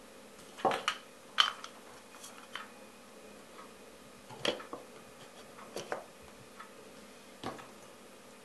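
Scattered clicks and knocks of a plastic Bosch electric coffee grinder being handled and its clear lid fitted over the whole beans, the loudest about a second and a half in.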